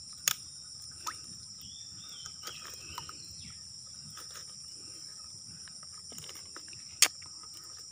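Steady, high-pitched insect chorus of several even tones, with two sharp clicks, one just after the start and one near the end, and a few faint ticks between.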